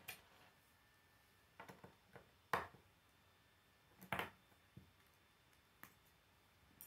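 Plastic K'nex rods and connectors clicking together and knocking on a wooden tabletop as they are assembled: scattered sharp clicks, the loudest about two and a half seconds in and a quick pair around four seconds in.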